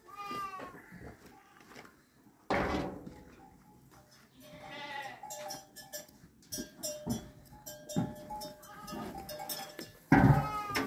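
Penned livestock bleating several times, with two sharp knocks; the louder knock comes near the end.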